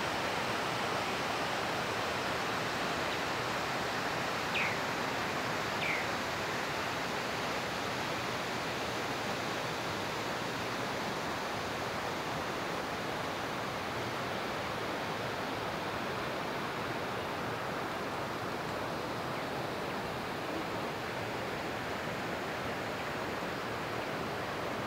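Steady rushing of flowing river water, with two short falling bird chirps about four and a half and six seconds in.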